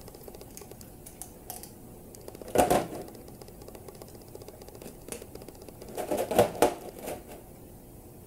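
Hollow plastic knocks and clicks as peanut butter is scooped from a plastic Jif jar into a plastic bowl, the utensil and jar tapping against the bowl's rim. There is a loud knock about two and a half seconds in and a quick run of knocks around six seconds in, with small clicks between.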